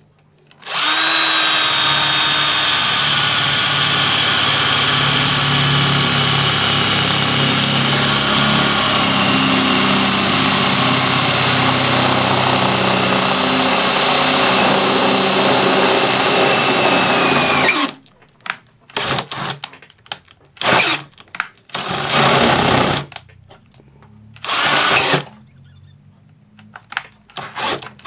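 Electric drill with a 3/8-inch bit boring through the steel lid of a metal ammo can: one long steady run of motor whine and cutting for about 17 seconds, easing slightly lower in pitch, then a string of short bursts as the trigger is pulsed.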